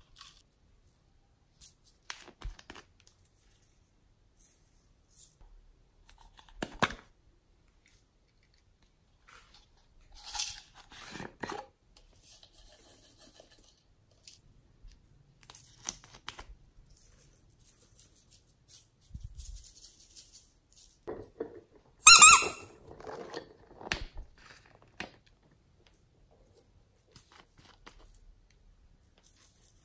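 Small plastic bottles and containers of glitter and sequins being handled, shaken and set down: scattered short clicks and rattles. The loudest clatter comes about two-thirds of the way through.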